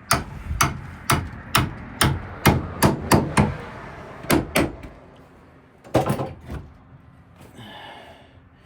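A hammer tapping on a hinge of a wooden cupboard, about a dozen sharp blows at roughly two a second. There is a short pause in the middle, then a few more taps.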